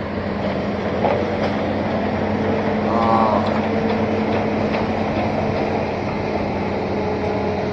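Diesel engine of an amphibious Hitachi Zaxis 210 excavator running steadily, a constant low hum.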